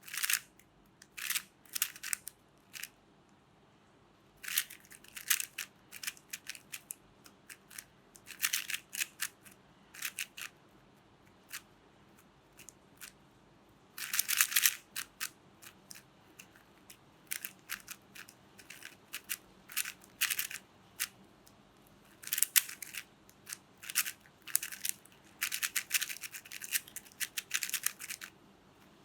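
Plastic Rubik's Cube being turned fast: runs of quick clicking and rattling face turns, broken by short pauses between runs.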